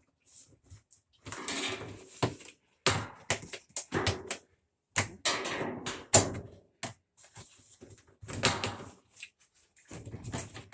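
Irregular knocks, clicks and scraping noises, starting and stopping every second or so, from parts and tools being handled during washer disassembly.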